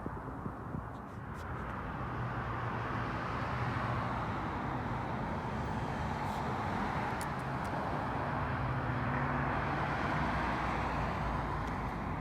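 Steady outdoor traffic noise from a motor vehicle running, swelling over the first couple of seconds and then holding.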